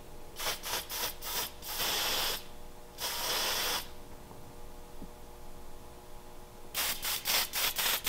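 Aerosol can of canned smoke test spray hissing at a smoke detector: a quick run of short bursts, two longer sprays of under a second each around two and three and a half seconds in, then more quick short bursts near the end.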